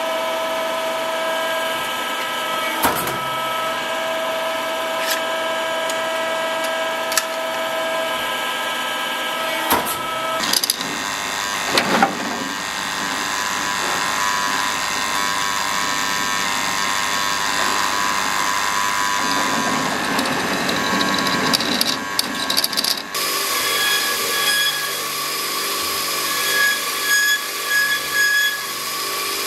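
Workshop power tools in turn: a hydraulic press running with a steady hum and a few sharp clicks, then a drill cutting into a steel sheet sheath from about ten seconds in, then a belt grinder running with the metal pressed against the belt over the last few seconds.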